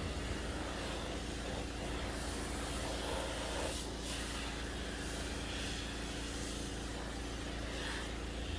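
A 4 GPM pressure washer running steadily with a constant hum, its spray hissing against the metal of a compact track loader.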